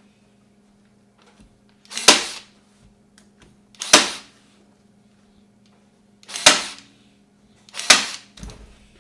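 Staple gun firing four times at uneven intervals, each a sharp snap, driving staples through the fabric into the wooden frame to hold it stretched.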